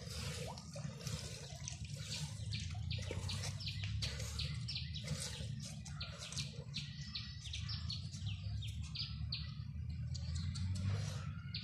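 Jets of milk squirting from a cow's teats into a small plastic mug during hand milking, in quick rhythmic hissing squirts about three to four a second.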